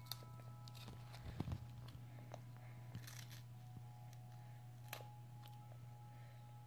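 Baby gnawing and chewing a dissolvable teething wafer: soft crunches and small mouth clicks, with a few low knocks about a second and a half in, over a steady low hum.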